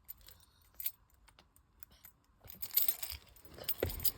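Handling noise: a few scattered light clicks, then from about two and a half seconds in a dense clatter of small jingling clicks like keys, with a dull thump near the end.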